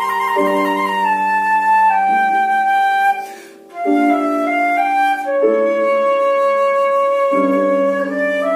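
A flute-like wind instrument plays a melody of held notes over a piano accompaniment. There is a brief break in the playing just after three seconds.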